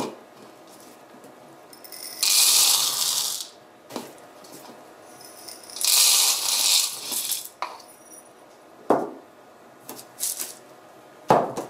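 KDF filter media, small copper-zinc granules, poured from a small cup through a plastic funnel into a filter cartridge, rattling in two pours of about a second each. A few short sharp knocks follow near the end as the cartridge is handled.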